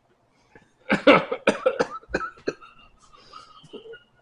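A man coughing several times in quick succession, then some fainter sputters, while eating very spicy ramen noodles.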